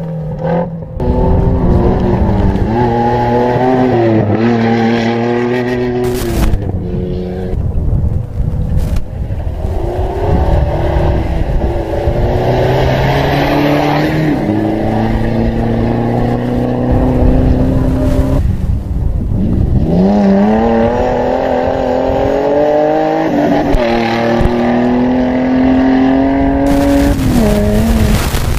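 Off-road race vehicle's engine revving hard, its pitch climbing and dropping again and again as the driver works the throttle.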